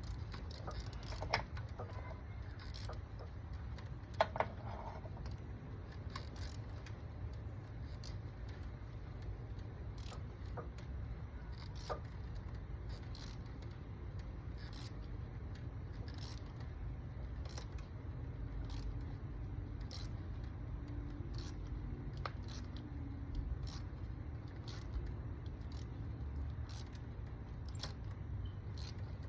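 Scattered metallic clicks and clinks of hand tools working on an engine's spark plugs, a few sharper ones in the first seconds, over a steady low rumble.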